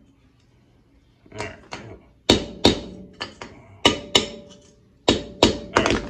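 Hammer tapping the retaining tabs of a steel-backed disc brake pad: about a dozen sharp metallic knocks, mostly in quick pairs, each with a short ring, starting about a second and a half in. The tabs are being bent down so the outer pad sits tight in the caliper and won't rattle or squeak.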